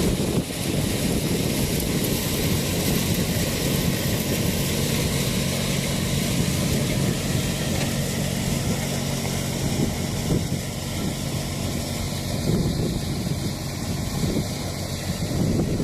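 Tractor engine running steadily while driving a chickpea thresher, with a continuous rushing noise from the machine.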